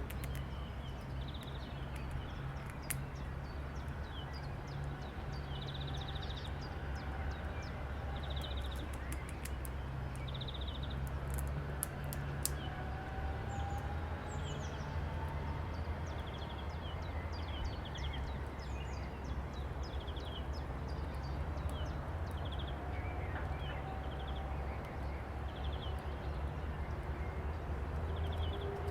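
Several birds calling and chirping, with short repeated trills, over a steady low rumble.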